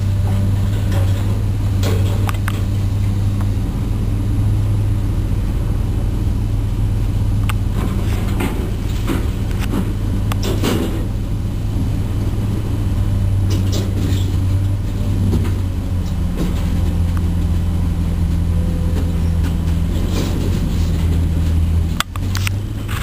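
A heavy diesel engine running steadily, its low drone rising and easing a few times as if under changing load, with occasional sharp metal clanks and knocks, the loudest about 10 seconds in and near the end.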